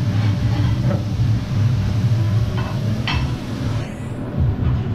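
Steady low rumble of a teppanyaki grill's overhead extraction hood, with a few light clinks of utensils about three seconds in.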